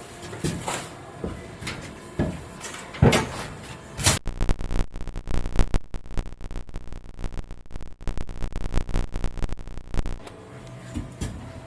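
Knocks and bumps from boat interior panels being handled, with a sharp knock about three seconds in and another about four seconds in. Then about six seconds of dense rustling and scraping.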